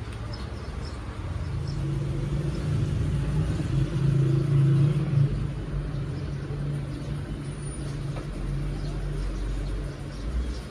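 A motor vehicle's engine running nearby, a low steady hum that swells about two seconds in and eases off after about five seconds.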